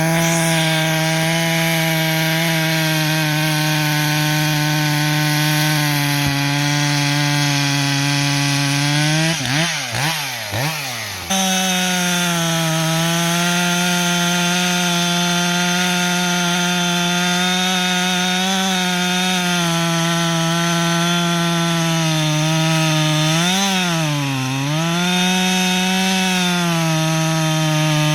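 Two-stroke chainsaw cutting through wood at high revs under steady load. About a third of the way in, the engine pitch swings up and down between cuts, then settles into another long cut. Near the end the pitch rises and dips briefly before recovering.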